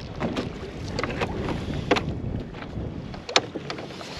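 Sharp knocks and clunks from a bow-mounted trolling motor being swung out and lowered over the bow of a boat, over steady wind noise on the microphone.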